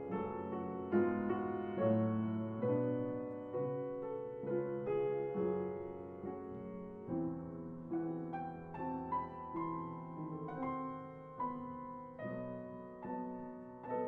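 Background piano music, gentle and slow, with notes struck at an even pace.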